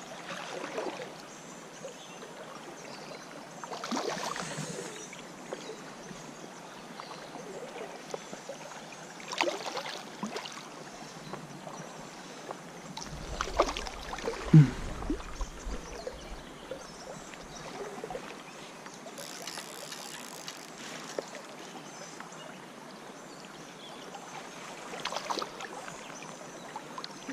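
Shallow creek water running steadily, with a few brief splashes as a hooked trout fights at the surface close by; the loudest comes about halfway through.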